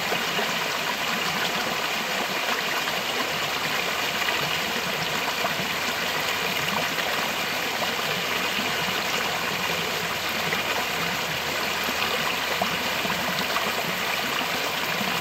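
Flowing stream running steadily, an unbroken rush of water with no change in level.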